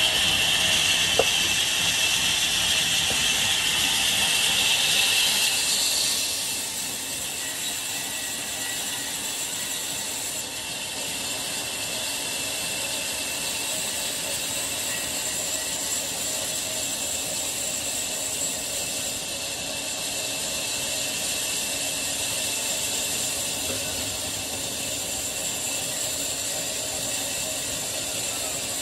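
Wood-cutting band saw, driven by an old diesel engine, running steadily. For the first six seconds the blade cuts through a log with a louder, higher hiss, then settles to a steadier running sound.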